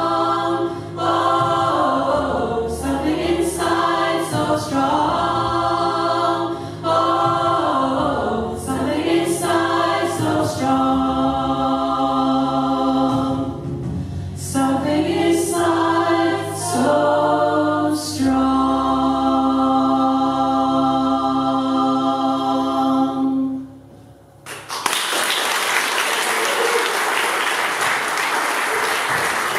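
Mixed rock choir singing in harmony, ending the song on a long held final chord that cuts off; after a brief pause the audience breaks into applause.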